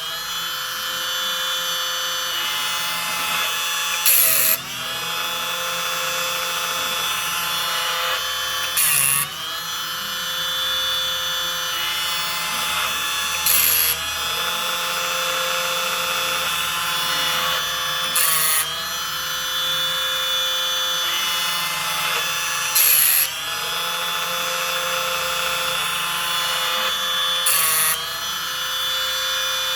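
Timber Tuff automatic chainsaw sharpener running through a 14-inch chain: its electric motor and grinding wheel whine steadily. Six times, about every four and a half seconds, the wheel grinds a cutter tooth in a short, loud grind as the machine steps to each tooth in turn.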